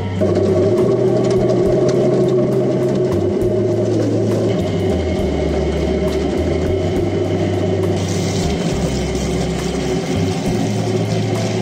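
Electric drum potato-peeling machine running, potatoes tumbling and scraping against its abrasive drum as water pours in. The steady churning comes on right at the start, and a water hiss grows louder about eight seconds in.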